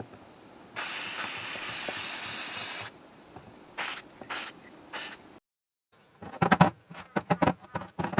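Aerosol spray-paint can spraying: one hiss of about two seconds, then two short bursts. After a break, a run of light clicks and knocks as small parts are handled on a workbench.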